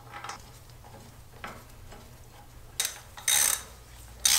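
Socket ratchet wrench tightening a motorcycle's front brake caliper mounting bolt. It gives a click and then short ratcheting runs on the back-swings in the second half.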